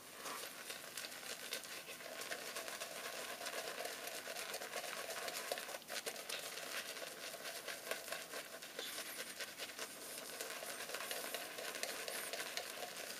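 Van Der Hagen boar-bristle shaving brush swirling soft soap lather over a wet, stubbled face: a steady soft wet scrubbing with a fine crackle of bristles and bubbles.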